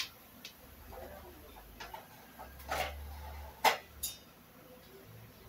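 Fennel seeds roasting in hot oil in an aluminium pot, crackling with a few scattered sharp ticks, the loudest nearly three and nearly four seconds in, over a faint low hum.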